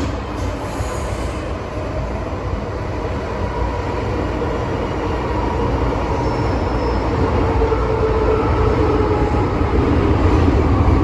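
MTR M-train electric multiple unit running, heard from inside the car: a steady low rumble of wheels and motors with whining tones, growing gradually louder.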